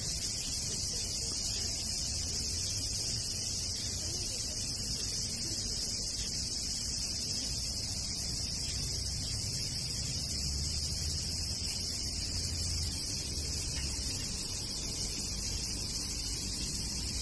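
Steady outdoor background: a constant high-pitched hiss over a low rumble, with no distinct events.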